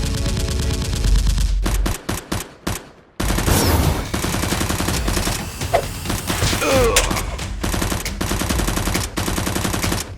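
Rapid bursts of automatic gunfire, with a short break about two seconds in before the firing resumes.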